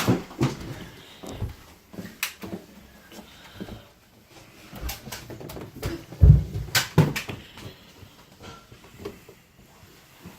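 Scattered clicks and knocks in a small room, with one heavier thump about six seconds in.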